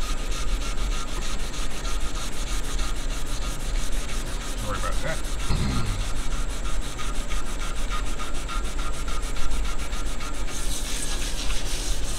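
Wet scouring pad scrubbing the glossy painted base of a barber's chair in quick, even back-and-forth strokes: a steady, rough rubbing as black marks and grime are worked off with citrus cleaner before repainting.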